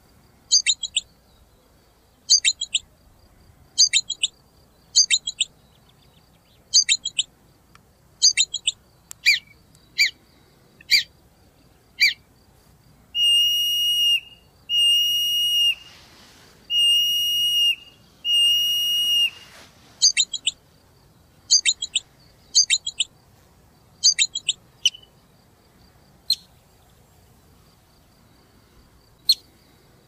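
Marmot whistle calls, the piercing calls marmots give in alarm: a run of short, sharp downward-sweeping whistles about one a second, then four long steady whistles of about a second each near the middle, then more short whistles.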